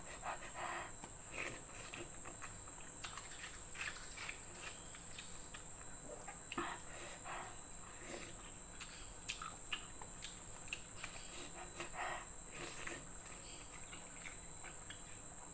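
A person eating: soft, irregular chewing and mouth-smacking sounds, close to the microphone, over a steady high-pitched whine.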